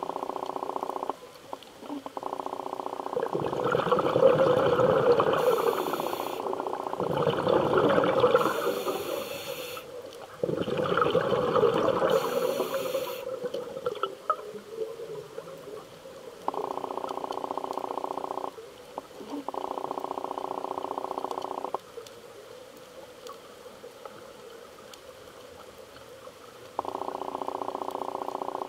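Scuba diver breathing through a regulator underwater. Each breath in through the regulator gives a steady, even hiss lasting a second or two. Each breath out releases a longer, louder, rumbling gush of bubbles, three of them in the first half, and there is a quieter lull near the end.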